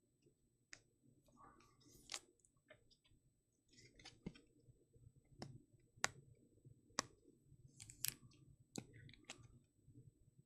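Faint, scattered clicks and light rustling of trading cards being handled, with about a dozen sharp ticks spread through.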